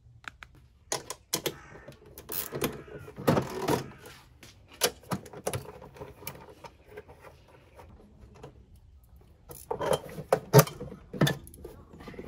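Metal clicks, clinks and rattles of the air cleaner housing on a Mercedes 500SL's M117 V8 being unfastened with a socket tool and lifted off. The handling comes in two busy spells, one in the first few seconds and another about ten seconds in.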